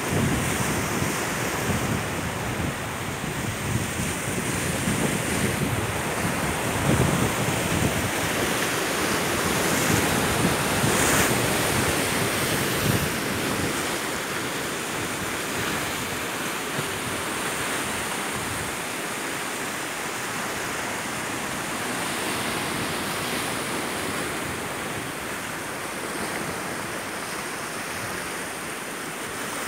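Sea surf washing against a rocky shore: a steady, even rush of waves. Wind gusts on the microphone add a low rumble through roughly the first half.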